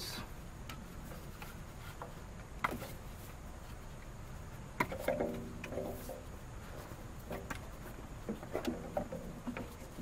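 Spark plug wire boots being pulled off a 1997 Nissan pickup's 2.4-litre engine: a few small clicks and snaps as the wires come free, two of them sharper. A faint voice is heard briefly in the middle and near the end.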